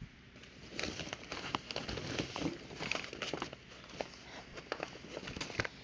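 Plastic packaging rustling and crinkling as items are rummaged through by hand, with many small irregular clicks and taps.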